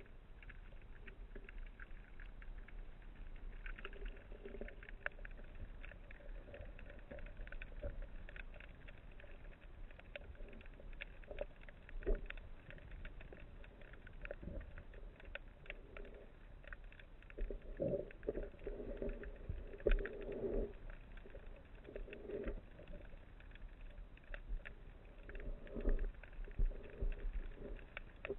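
Underwater ambience heard through a camera housing: a steady crackle of faint clicks, with muffled knocks and rumbles now and then, loudest about two-thirds of the way through and again near the end.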